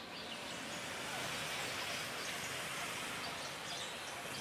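Steady outdoor background noise, an even hiss, with a few faint chirps.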